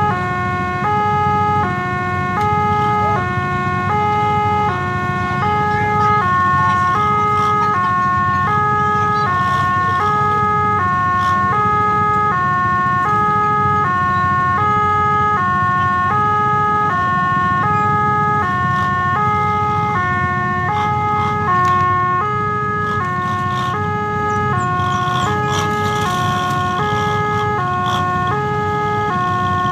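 Railway level-crossing alarm sounding its repeating two-tone electronic signal, high and low tones alternating about twice a second, warning that the barrier is closed for an approaching train. Underneath runs a steady low rumble of the waiting motorcycle engines.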